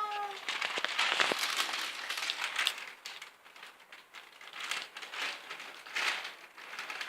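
A cat crunching lettuce leaves, a crisp crackling chew in dense bursts that thin out after about three seconds. The tail of a meow trails off right at the start.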